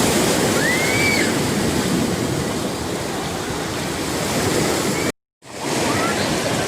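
Sea waves washing onto a beach, a steady surf. The sound cuts out completely for a moment about five seconds in, then comes back.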